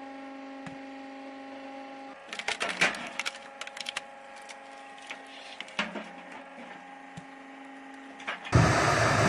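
Hydraulic log splitter's motor humming steadily while a round is forced through a multi-way splitting wedge, the wood cracking and splintering in a burst of sharp cracks about two to three seconds in, with a few more later. Near the end a much louder machine noise cuts in.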